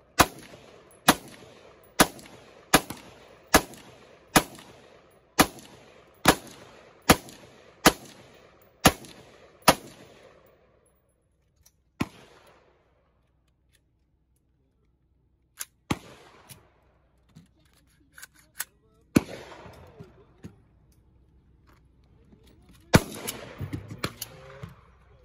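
Rifle shots from a rifle fed from a drum magazine: about a dozen evenly paced single shots, roughly one a second, for the first ten seconds, then a few lone shots with long pauses between them.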